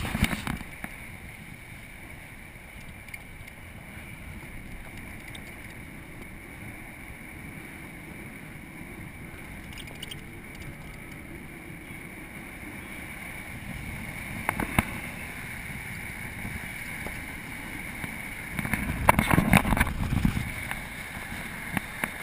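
White four-by-four driving along a dirt track, heard through a camera mounted outside the body: a steady rumble of engine and tyres with wind on the microphone. There are a few louder knocks or gusts about two-thirds of the way through, and again near the end.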